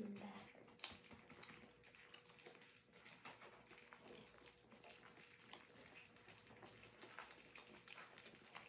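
Faint, quick wet clicks and smacks of three-week-old French bulldog puppies lapping soft food off lick mats.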